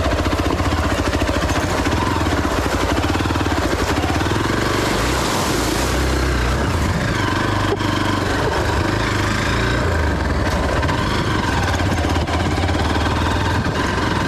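Hero XPulse 200's single-cylinder engine running under way on a loose gravel and rock track, mixed with wind and ride noise picked up by the on-board camera.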